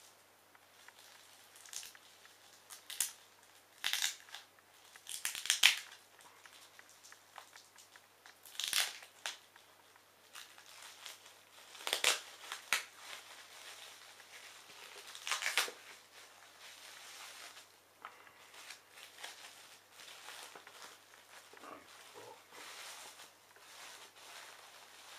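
Clear plastic bag crinkling and rustling as hands open it and dig through the packing inside, in irregular bursts, loudest about five seconds in and again at about nine, twelve and fifteen seconds.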